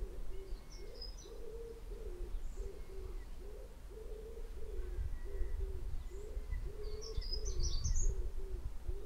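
A pigeon cooing, a long run of low hoots repeated over and over. A few high bird chirps come through about a second in and again near the end.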